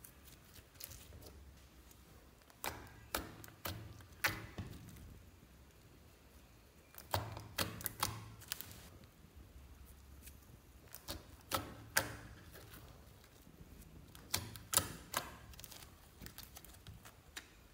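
Hands pressing and kneading soft slime, squeezing out sharp clicking pops of trapped air. The pops come in four bursts a few seconds apart, with quieter squishing between.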